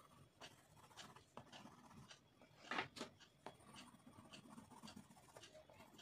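Wax crayon rubbing back and forth on thick paper in quick, faint scratchy strokes as a dense layer of colour is laid down. There is a single louder scrape or knock near three seconds in.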